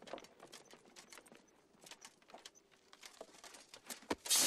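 Faint clinks and shuffles of armour and footsteps. Near the end comes a sudden loud metallic scrape that rings on: a sword being drawn from its scabbard.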